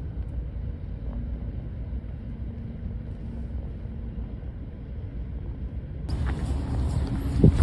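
Steady low rumble of a car driving. About six seconds in the sound changes abruptly, with a few light clicks and a thump near the end.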